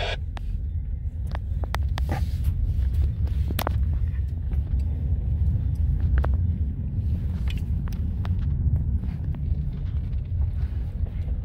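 Steady low rumble of a car driving, heard from inside the cabin, with a few light clicks scattered through it.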